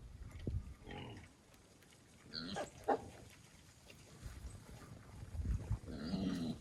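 Wild hogs grunting and squealing, faint, in a few short calls about a second in, near the middle and near the end. Low wind rumble underneath.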